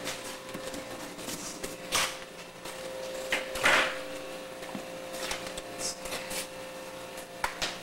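A few scattered knocks and scuffs, the loudest a short scrape a little before the middle, over a faint steady hum.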